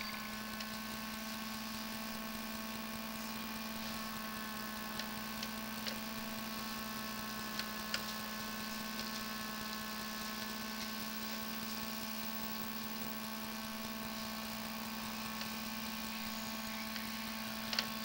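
Steady machine hum: a constant low tone with fainter steady tones above it, broken by a few faint clicks.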